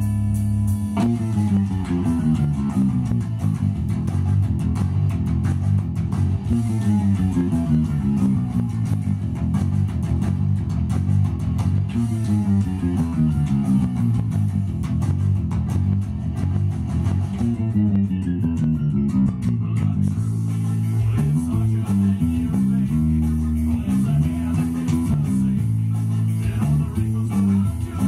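Electric bass guitar playing the bridge of a metal song. It runs repeated fast descending note runs, and about twenty seconds in it changes to a choppy riff that jumps back and forth between notes.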